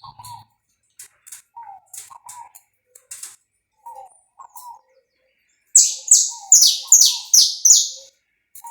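Saffron finch singing: scattered short chirps and clicks, then about six seconds in a loud run of about seven quick high notes, each sweeping downward.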